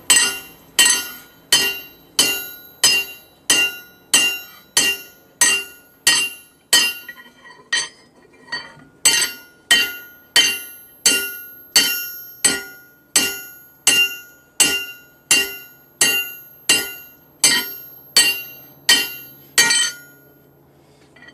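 Hammer blows on a cold steel bar resting on a homemade anvil made from a round block of scrap steel, about two sharp ringing strikes a second. There is a brief pause about eight seconds in, and the hammering stops shortly before the end.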